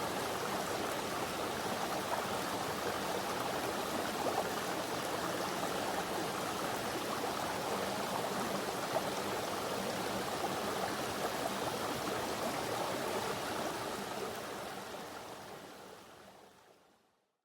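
Mountain stream flowing over rocks, a steady rushing of water that fades out near the end.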